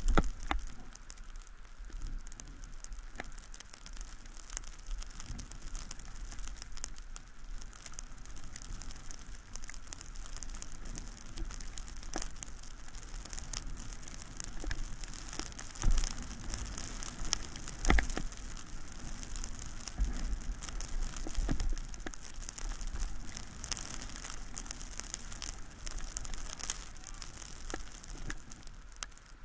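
Steady hiss and scrape of edges sliding over snow during a downhill run, with scattered crackle and a few sharp knocks, the loudest about 16 and 18 seconds in, as the mounted camera is jolted.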